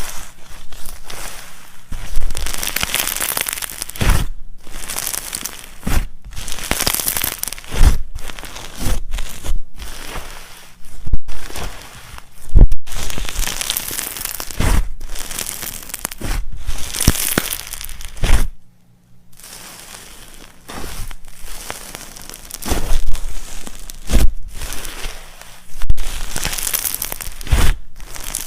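Slime being squished and stretched by hand, crackling and popping in repeated bursts, with a short pause past the middle.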